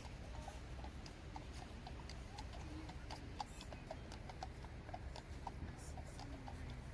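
Hard, irregular clicking steps on pavement, several a second, over a steady low city rumble.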